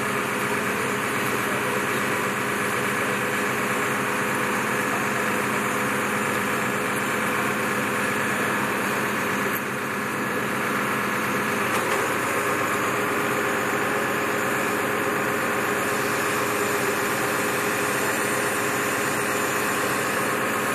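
Fire brigade turntable ladder truck's engine idling steadily while the ladder is extended on its outriggers.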